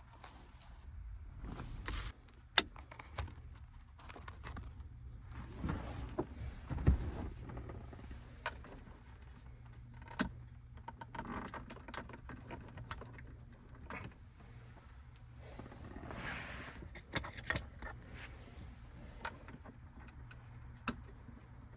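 Hands working on plastic dash trim and wiring-harness connectors behind a truck's radio console: scattered sharp plastic clicks and knocks among rustling of wires and parts.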